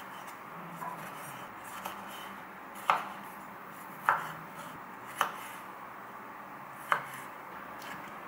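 Chef's knife cutting cherry tomatoes on a wooden cutting board: a few soft taps, then four sharp knocks of the blade striking the board a second or so apart.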